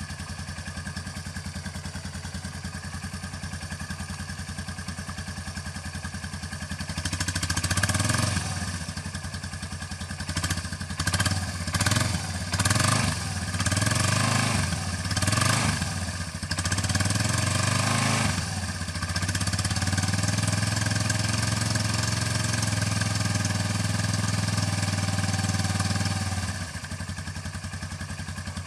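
Small ATV (quad bike) engine running at idle. It is revved about seven seconds in, then blipped several times in quick succession. From about twenty seconds it is held at a steady higher speed, then drops back to idle near the end.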